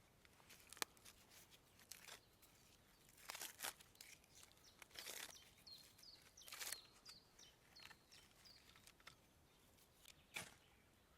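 Faint outdoor ambience of scattered rustles and crunches, with a quick run of small high bird chirps in the middle.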